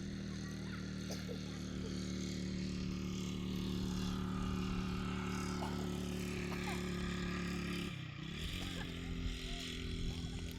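An engine running steadily. About eight seconds in, its pitch drops sharply, then climbs back.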